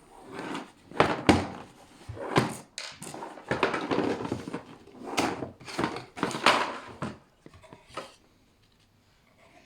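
Cardboard box being handled and opened: irregular knocks and thuds with scraping, rustling noise, dying away about seven seconds in.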